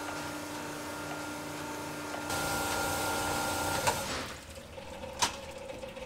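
Sunnen CV616 cylinder hone running, stroking its stones in a cylinder of a cast-iron AMC 258 straight-six block with honing oil flowing, bringing the bore to finished size. It runs as a steady mechanical hum with a few fixed tones, grows louder about two seconds in, then stops about four seconds in, followed by a sharp click.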